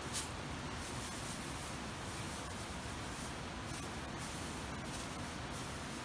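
Dry grass rustling and crackling as it is handled, with a sharper crackle just after the start, over a steady background hiss.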